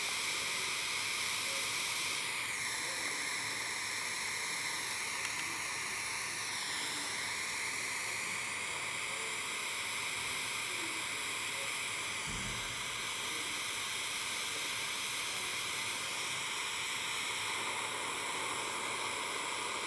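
Jeweller's gas soldering torch flame hissing steadily, heating the joint of the twisted ring blank until the solder flows.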